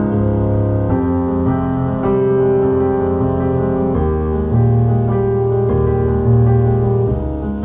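Background music led by piano, slow held chords changing every second or so.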